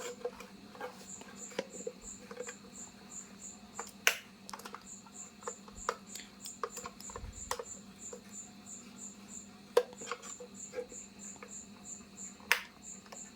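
A cricket chirping in quick, steady pulses of about four a second, with short pauses, under a faint steady hum. A few sharp handling clicks stand out, the loudest about four seconds in and near the end, as the panel light's plug and extension cord are worked.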